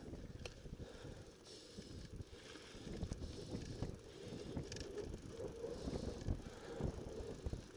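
Mountain bike with knobby tyres rolling over a loose dirt and rock trail: the tyres crunch and the bike rattles, with irregular knocks over bumps.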